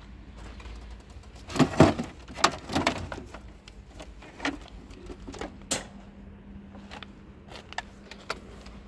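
Rummaging in a heap of scrap electrical junk: a quick run of hard plastic and metal clatters and knocks as a Bosch corded drill and its cord are pulled free, then a few single clicks and taps as it is handled and set down in a wire cart.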